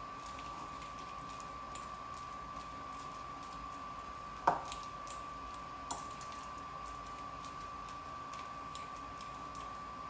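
A fork mashing ripe bananas in a ceramic bowl: faint squishing and scraping with light ticks, and a sharp clink of the fork against the bowl about four and a half seconds in, with a lighter one a second or so later. A steady high-pitched tone runs underneath.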